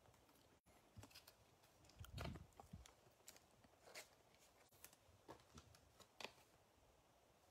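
Near silence with faint, scattered clicks and rustles of a trading card being handled and slid into a plastic card sleeve, with a soft knock and rustle about two seconds in.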